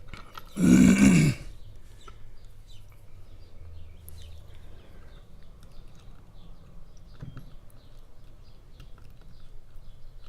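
A loud, throaty vocal burst lasting under a second, about half a second in, followed by light clicks and taps of small metal tools working on a padlock's core as its tail piece is pried off.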